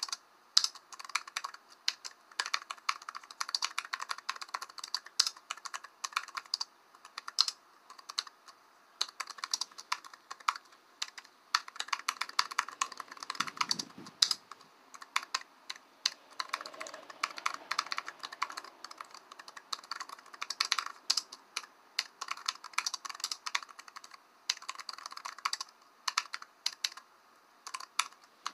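Typing on a computer keyboard: rapid, irregular key clicks in uneven bursts, with a brief low thud about halfway through.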